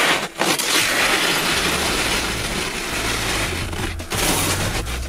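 Snowboard edge scraping and crunching over hard, icy snow on a steep slope, a steady rough scrape with two brief breaks.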